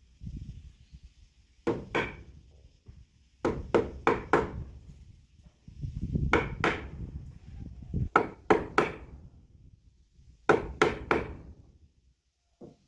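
Hammer strikes on wood, landing in quick groups of two or three every couple of seconds, with handling noise between the groups and one light knock near the end.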